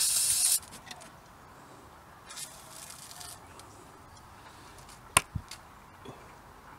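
WD-40 aerosol can spraying penetrating oil onto seized old brake caliper bolts to free them: a short hiss, then a fainter, slightly longer spray about two seconds later. A single sharp click a little after five seconds in.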